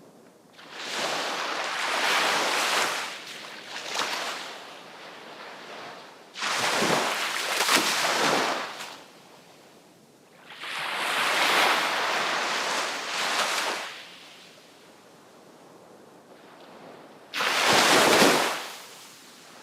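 Sea waves breaking on the shore: four crashes, each a rush of surf lasting two to three seconds, with quieter washing in between. The second and last waves come in suddenly.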